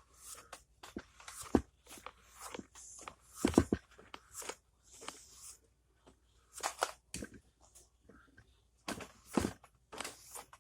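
Objects handled close to the microphone: an irregular run of short taps, crackles and crunches, as in ASMR sound-effect recordings.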